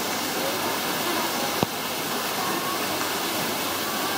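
A steady rushing noise, with one sharp click about one and a half seconds in.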